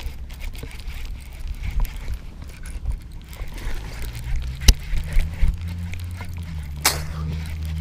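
A fishing reel being cranked to bring in a hooked bass, with rod-handling rustle and many small clicks. Two sharp clicks stand out about two-thirds of the way through, and a low steady hum comes in about halfway.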